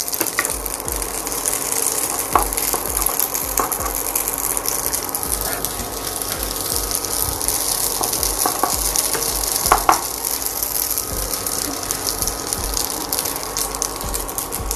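Spaghetti frying with bacon and dried chillies in olive oil in a nonstick pan: a steady crackling sizzle, with a few sharp knocks of a wooden spatula against the pan, the loudest about ten seconds in.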